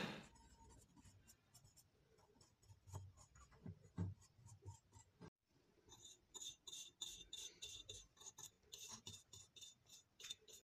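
Faint scratchy strokes of a small stiff brush scrubbing a metal pin held in pliers. The strokes are sparse at first and come quicker and more steadily in the second half. A louder running noise dies away right at the start.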